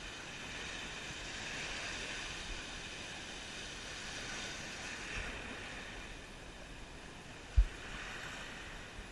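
Waves breaking and washing in shallow surf, the rush swelling and easing several times. A single short, low thump comes about seven and a half seconds in.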